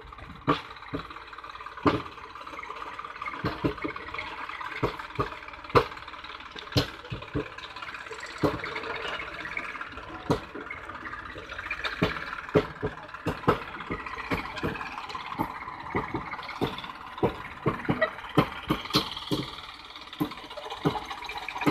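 Rail-wheeled farm tractor's diesel engine running steadily while it moves a loaded hopper wagon along the track. Many sharp, irregular clanks and knocks sound over it throughout.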